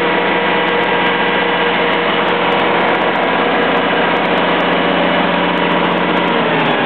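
Kohler 85 kW standby diesel generator set running steadily at governed speed. Near the end its pitch starts to fall as the engine begins to slow down.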